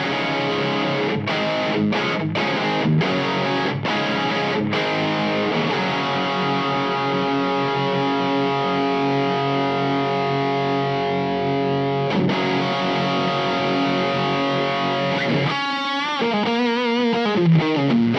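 Electric guitar played through the LPD Seventy4 overdrive/distortion pedal, set with everything at about noon. Distorted chords are struck with short breaks, then a long chord rings out. Near the end comes a lead line with bends and wide vibrato.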